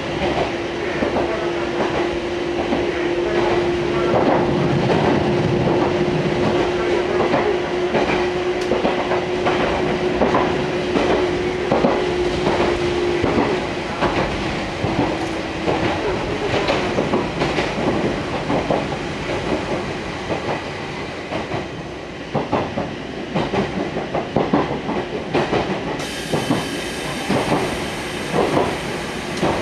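Fukui Railway Fukubu Line electric train running at speed, heard from inside the car: wheels clacking steadily over rail joints. A steady hum sounds through the first half and fades out about halfway, and a high hiss comes in near the end.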